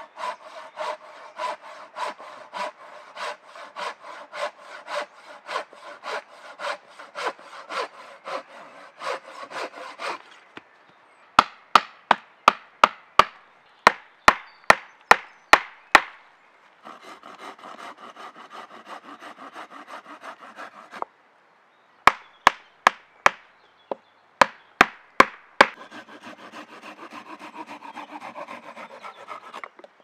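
Hand saw cutting through wood in even strokes, about two a second. Twice it gives way to a run of sharp hammer blows driving wooden legs into the sawhorse log, each run about two knocks a second, with more sawing between and after.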